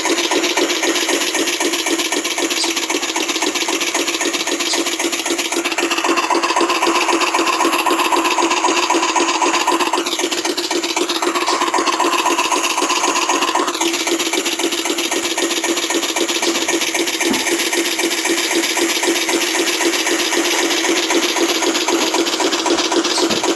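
Recording of a Lister single-cylinder diesel engine running, played back through a recordable greeting card's sound chip and tiny speaker: a steady chugging, thin and tinny with no bass. From about six seconds in to about fourteen, a higher tone rides over it.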